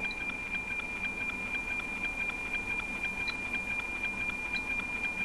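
NOAA 18 weather satellite's APT image signal, demodulated as narrow FM by a software-defined radio receiver: a steady high tone with a regular tick-tock, about four ticks a second, from the image line sync pulses.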